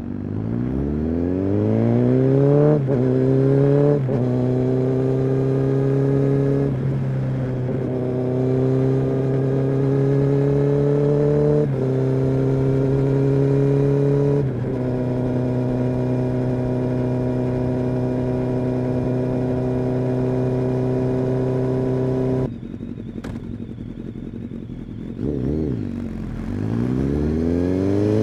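Kawasaki ZX-10R's inline-four engine and exhaust accelerating hard: the pitch climbs, then steps down at each of several upshifts before holding a steady cruise. About 22 seconds in the throttle shuts and the engine drops to a quieter run. A quick rev blip follows, then it pulls hard again near the end.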